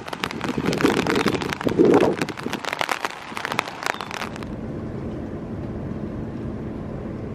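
Rain: for about the first four seconds, dense rapid taps of drops striking close to the microphone, then, after a sudden change, a steady, softer rain hiss.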